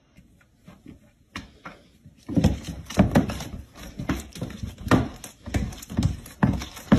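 Two cats wrestling on a hardwood floor: a rapid run of thumps and scuffles from their bodies and paws hitting the boards, starting a couple of seconds in after a near-quiet start.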